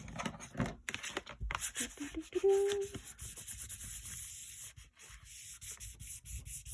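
Quick, repeated rubbing strokes on paper, a dry scratchy hiss that starts about a second and a half in.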